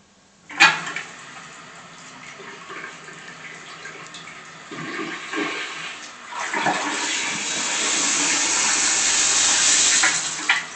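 Remote-controlled electronic toilet flushing: a sharp click about half a second in, then water running, building to a loud rushing flush from about six seconds in that drops off near the end.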